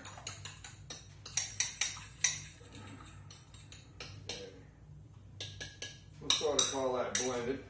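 A fork beating an egg in a small bowl: quick metal clinks against the bowl, about five sharp ones in a row a second and a half in and more a little before the end. A man's voice is heard briefly near the end.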